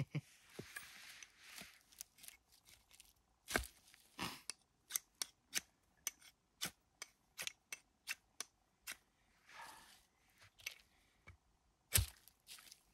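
Knife spine struck again and again down a ferro rod fire steel: a run of short, sharp scraping strikes, about two or three a second, with a louder strike near the end, in an attempt to throw sparks onto dry bark tinder.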